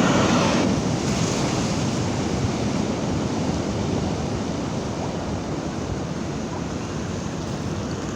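High sea waves breaking on the shore: a loud surge of surf in the first second, then a steady rushing wash that slowly eases off.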